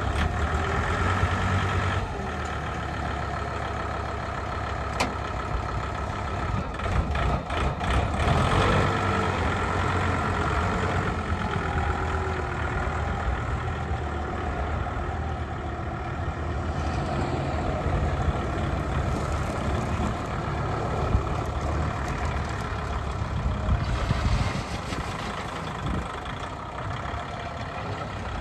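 Kubota L5450 tractor's diesel engine running steadily, with a few sharp clanks partway through.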